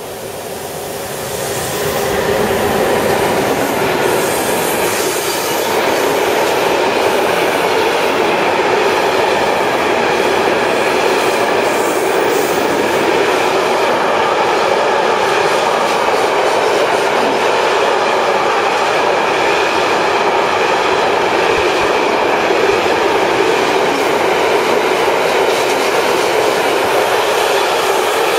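Container freight train hauled by a CargoNet CE 119 TRAXX electric locomotive passing close by: the sound swells over the first two seconds as the locomotive goes by, then holds as a steady, loud rumble of container wagons rolling on the rails, with wheel clatter.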